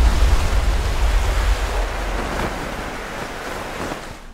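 Rushing sea surf and wind, with a heavy low rumble that is strongest at first and fades gradually.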